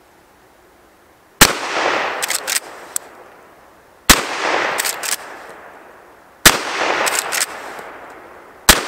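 Henry Lever Action Axe .410 firing rifled slugs: four shots about two and a half seconds apart, each trailing a long echo that dies away, with short sharp clacks between shots.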